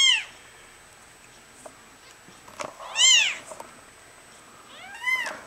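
Day-old kitten mewing: three short high-pitched cries, each rising then falling in pitch, a couple of seconds apart.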